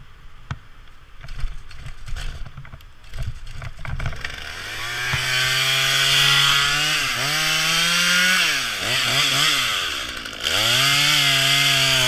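Top-handle chainsaw running hard after a few seconds of clicks and rustling, its pitch climbing, then dipping sharply twice and running back up.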